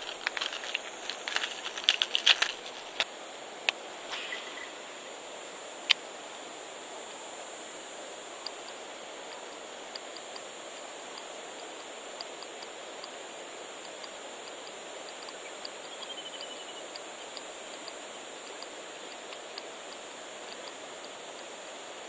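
Clicks and light rattles of lures being handled in a clear plastic lure box over the first three seconds, with one sharp click about six seconds in. Then a steady outdoor background: a constant high-pitched insect drone over a soft even hiss, with one short falling chirp about midway.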